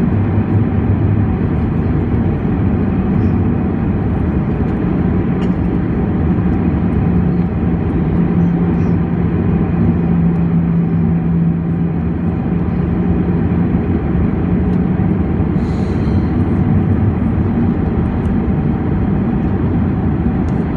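Airbus A319 cabin noise in flight: a steady, loud rush of engines and airflow with a low, even hum under it.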